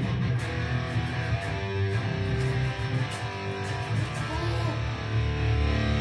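Band playing at a sound check, led by an amplified electric guitar over steady low bass notes.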